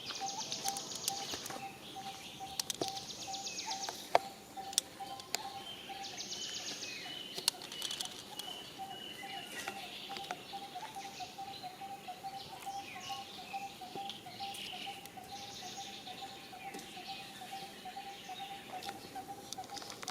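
Jungle ambience: a steady, rapidly pulsing call runs underneath, with short bursts of high insect buzzing and scattered bird chirps. A few sharp clicks stand out, the loudest about four seconds in.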